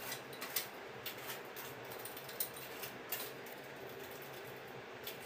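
Irregular light scrapes and clicks of hand-work at the mitred joint of a gypsum plaster cornice, over a steady faint hum.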